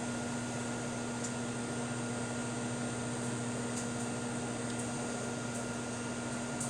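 GE countertop microwave oven running mid-cycle, a steady hum.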